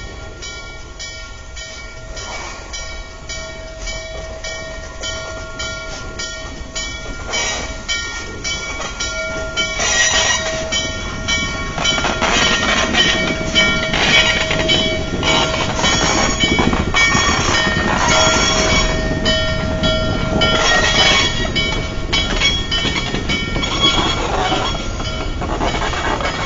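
Norfolk & Western 611, a J-class 4-8-4 steam locomotive, drawing near and passing close. Its exhaust chuffs at a steady beat of about three a second, then grows louder and thicker with rod and wheel clatter as the engine goes by, about ten seconds in.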